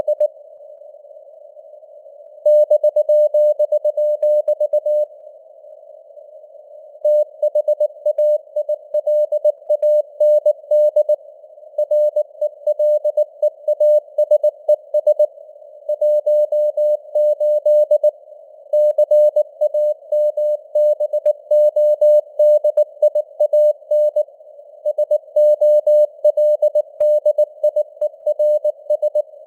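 Morse code (CW) sent at about 19 words per minute as a single high keyed tone, the dots and dashes sitting in a narrow band of simulated receiver noise that hisses on through the gaps. Longer pauses come just after the start and again around five seconds in.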